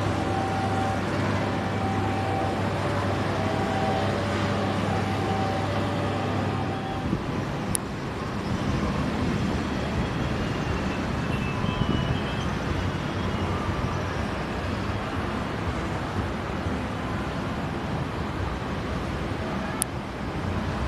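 Vehicle noise: a steady low hum with a repeating higher tone that stops about seven seconds in, then a steady broad rumble.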